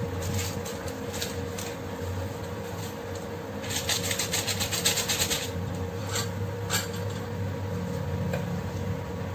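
About four seconds in, a foil sachet of tamarind (sampalok) soup-mix powder crinkles rapidly for about a second and a half as it is squeezed and shaken out over the boiling pot. A couple of light clicks follow. A steady low hum runs underneath.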